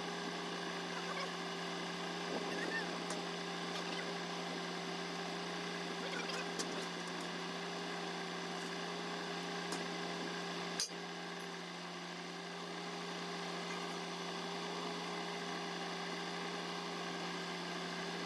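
John Deere 7720 tractor running with a steady, even hum heard from inside the cab, with one faint click about eleven seconds in.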